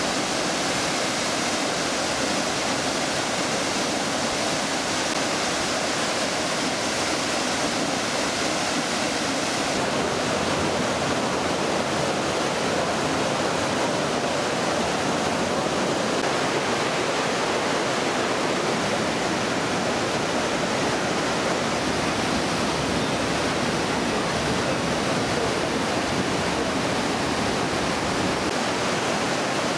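Steady rush of a waterfall and whitewater mountain torrent pouring over rock in a narrow gorge. Its tone shifts slightly about ten seconds in.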